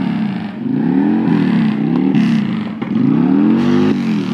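Harley-Davidson V-twin motorcycle engine being revved through its exhaust: three throttle blips, the engine note climbing and falling back each time, the last one longer and higher, held for about a second before it drops.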